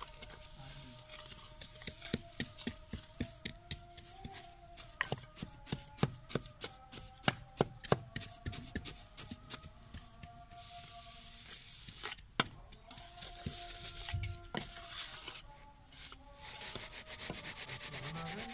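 Damp casting sand being packed into a metal mould box and struck level with a metal trowel: a quick run of sharp taps and scrapes, then, from about ten seconds in, longer gritty scraping strokes as the top is smoothed.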